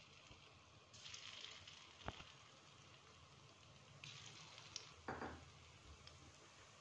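Potato balls frying in hot oil in a wok: a faint, steady sizzle that swells about a second in and again about four seconds in as more balls go into the oil, with a couple of soft knocks.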